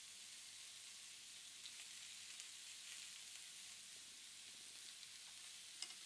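Food sizzling faintly and steadily in a hot pan or grill, with a few small crackling pops, the sharpest one near the end.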